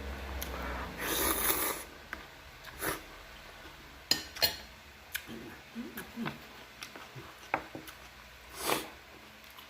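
Eating noises of a person having spicy noodles and kimchi: a long slurp about a second in and another near the end, with chewing and a few sharp clicks of utensils against the bowl.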